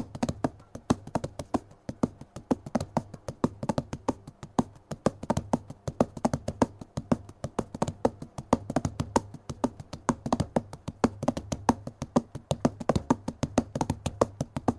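Background music of dry, rapid, irregular wooden clicks and taps, several a second, over a low steady hum.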